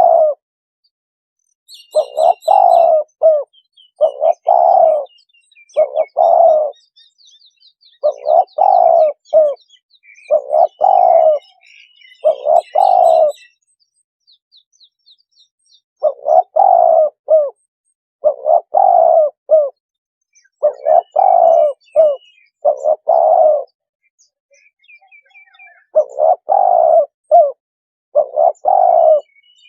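Spotted dove cooing: loud low calls, each about a second long, repeated every second or two in runs, with pauses of about two seconds twice. Faint high chirps of small birds sound behind.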